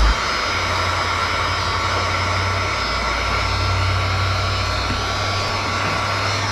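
Heat gun blowing steadily, a fan whine over the rush of hot air, as it heats the window tint film.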